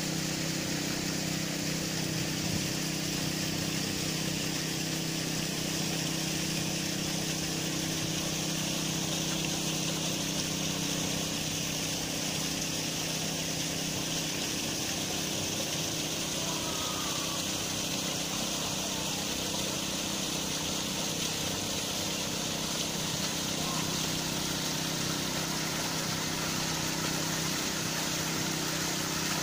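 Steady low mechanical hum, several held tones together, with a constant hiss above it that does not change.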